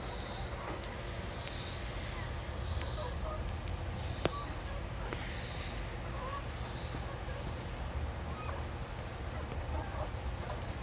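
Insects calling in a regular pulsing hiss, about one pulse every second and a half, fading out after about seven seconds, with a hen's soft, scattered clucks and one sharp click about four seconds in.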